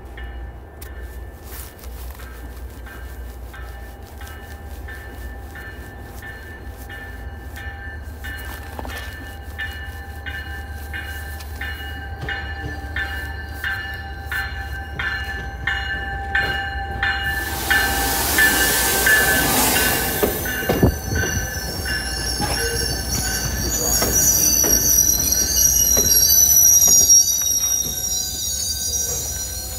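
MBTA commuter train, led by a cab car, approaching and passing close by. For the first half there is a steady run of even clicks, then a loud burst of hiss. In the last several seconds high-pitched wheel squeal rises as the cars curve into the tunnel.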